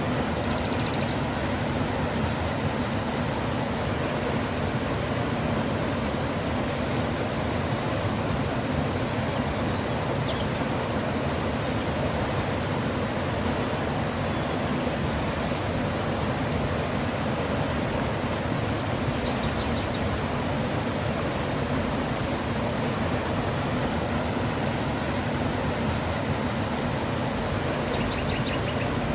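Mountain river flowing with a steady rushing noise. A high, even chirp repeats about two to three times a second over it, with a few short high trills near the end.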